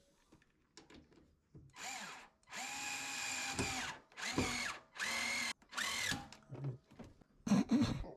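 Cordless drill/driver running in five short bursts, each whine winding up and then down, as screws are driven during reassembly of a washer, followed by a few knocks near the end.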